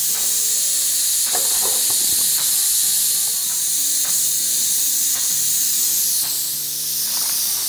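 A steady, loud hiss throughout, with soft background music under it. A few short scrapes and clinks come as cooked chicken fajita is tipped from a hot nonstick pan into a foil tray.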